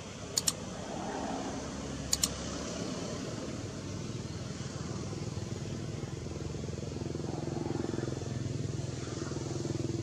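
A motorcycle engine runs steadily nearby and grows louder in the second half. Two quick double clicks stand out, about half a second in and again about two seconds in.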